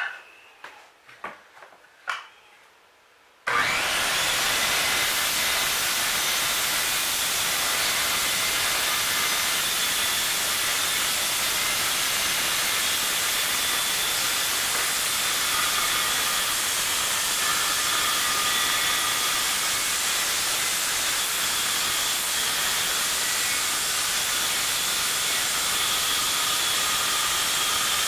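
A few handling knocks, then about three and a half seconds in a Ridgid circular saw starts and runs steadily, cutting into the particle-board subfloor along a marked line, with a faint motor whine under the noise of the cut.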